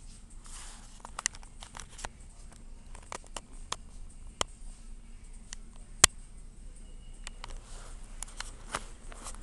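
Irregular sharp clicks and taps over a low steady hum, with one louder click about six seconds in.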